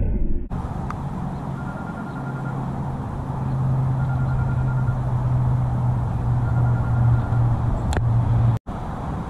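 Steady rumble of road traffic with a low engine drone, cut off abruptly for a moment near the end.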